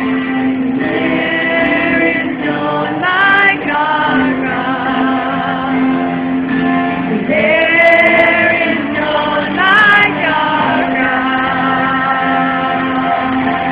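Music with several voices singing together, a low note held underneath the melody, heard through a phone's thin, muffled sound.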